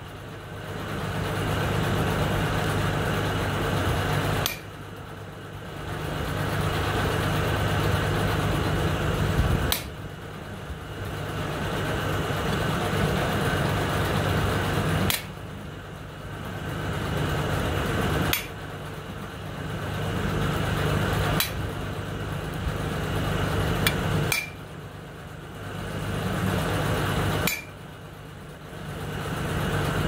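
Steel-forging tool working the veins into a hot steel leaf on an anvil: a steady mechanical hum that runs in stretches of three to five seconds, each broken off by a sharp click.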